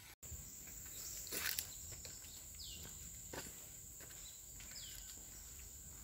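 Tropical forest ambience: a steady, high-pitched insect drone, with a bird giving a short falling call twice and a few faint footsteps on the trail.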